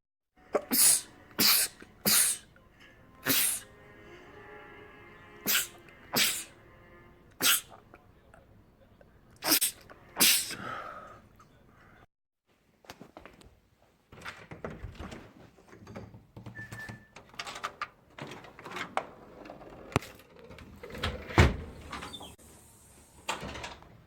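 A man sneezing hard, about nine sneezes in quick succession over some ten seconds. After a short gap come softer knocks and shuffling noises, with one more loud, sharp burst near the end.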